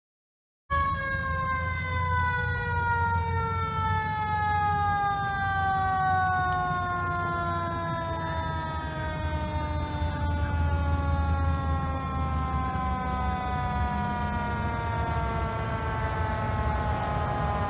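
Mechanical emergency siren winding down: one long wail sliding slowly and steadily lower in pitch, starting abruptly about a second in, over a low rumble of vehicle engines.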